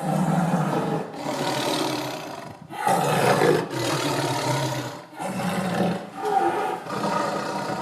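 Big cat, such as a lion or tiger, roaring and growling in a run of rough calls about a second long each, cutting in suddenly at the start.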